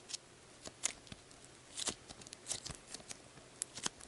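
Soft putty-like slime with small foam beads in it being stretched and squeezed by hand: irregular small clicks and crackles, several to the second.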